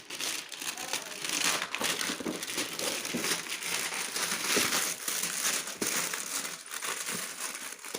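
Packaging of a box of firecrackers being crinkled and pulled open by hand, a continuous run of irregular rustles and crackles.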